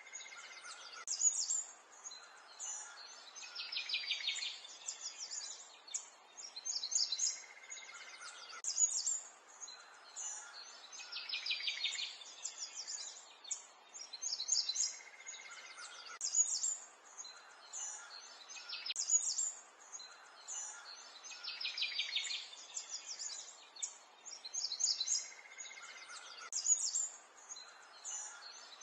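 Birds chirping and twittering, with bursts of quick high trills recurring every few seconds.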